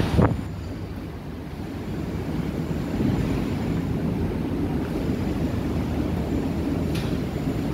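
Steady low rumble of the Star Ferry's engines with the ferry alongside the pier, and a single loud thump just after the start.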